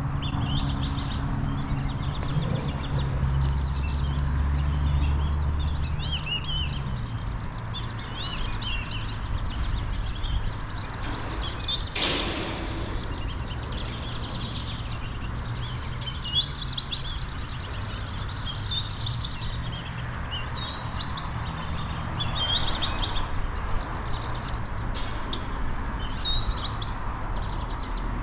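Songbirds chirping and twittering: many short, quick calls, one after another throughout, over a steady low hum. There is one brief burst of noise about twelve seconds in.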